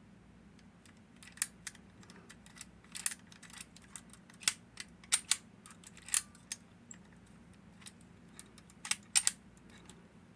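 Irregular small metallic clicks and taps from a Hori lever padlock and its parts being handled, starting about a second and a half in, with a pair of sharper clicks near the end.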